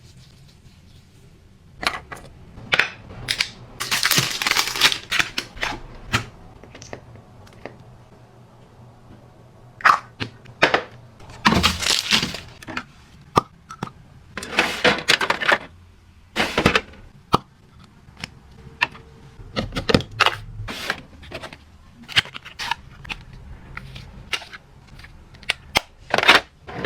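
Small objects being handled and set down by hand: a string of sharp clicks and taps, with bursts of rustling a few times.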